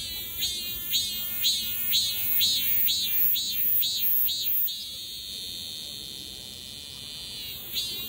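Male cicada singing: a loud, high buzzing song that pulses about twice a second for the first five seconds, each pulse swelling and dipping in pitch, then settles into a steady drone, with one more pulse just before the end.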